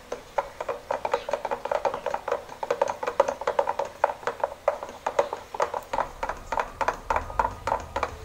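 Wooden stick stirring paint in a plastic container, knocking against its sides in a quick, steady clatter of several taps a second.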